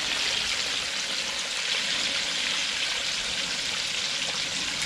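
Floured tilapia pieces frying in a wide pan of hot oil: a steady sizzle.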